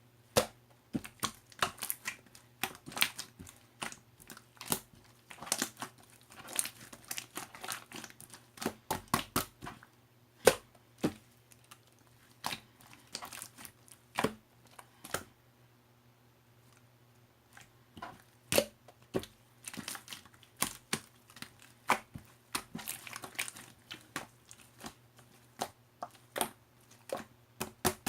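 Crinkly material being handled: irregular crackling and crinkling with sharp clicks, with a lull of a few seconds about halfway through.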